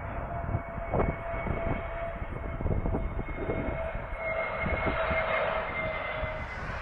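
Jet airliner's engines on landing approach, a steady whine with two held tones over a low rumble, with wind buffeting the microphone.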